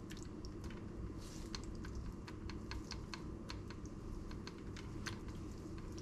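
Metal spoon clicking and tapping against a frying pan and a sauce bowl while spreading thick meat sauce over lasagna sheets: irregular small sharp clicks, a few a second, over a steady low hum.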